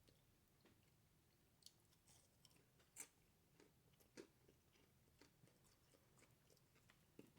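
Faint chewing of food: quiet, scattered mouth clicks, with a few slightly louder ones.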